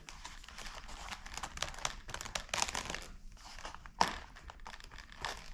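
Hands working a foam RC plane's wing onto its fuselage: rustling and scratchy creaking of foam and wires as the wires are pulled into the fuselage, with a sharper knock about four seconds in.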